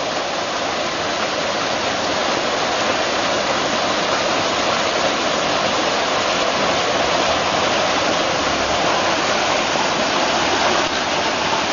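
Steady rush of water pouring from a small waterfall over rocks into a pond, a constant splashing noise.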